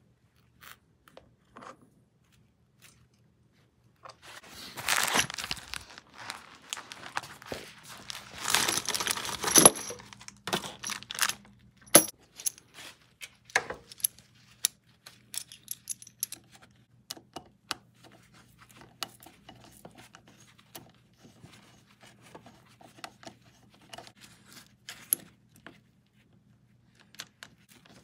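Gloved hands handling braided AN hose lines and anodized metal fittings: rustling with scattered light metallic clicks and clinks. There is a louder stretch of rustling a few seconds in and a sharp click about twelve seconds in.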